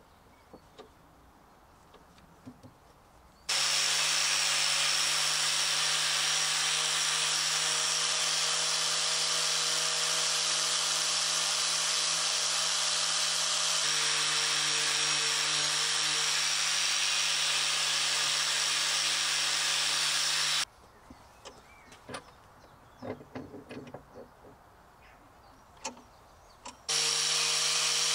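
Electric angle grinder with a wire cup brush scrubbing rust off a steel chisel clamped in a bench vice: a steady motor hum under a harsh brushing hiss. After a few quiet seconds with light knocks, it runs for about seventeen seconds, stops, and starts again near the end.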